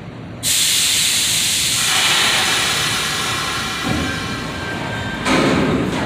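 Loud hiss of compressed air from a subway train's air brakes, starting suddenly about half a second in and slowly fading, then a second surge of noise near the end as the train starts to pull out.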